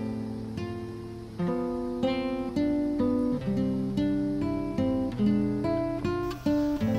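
Background music of a solo acoustic guitar picking a melody over chords, each plucked note ringing and fading.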